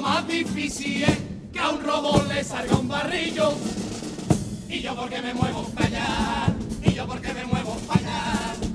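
Chirigota carnival band music: snare drum and bass drum keeping a steady marching beat under the group's melody.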